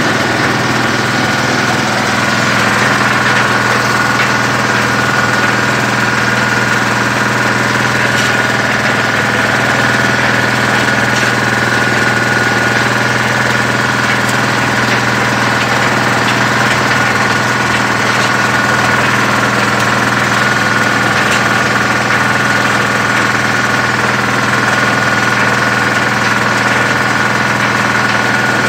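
Arecanut de-husking machine running steadily under load, a constant mechanical drone with a steady whine, as de-husked nuts pass through it and fall into a basket. A few faint clicks stand out here and there.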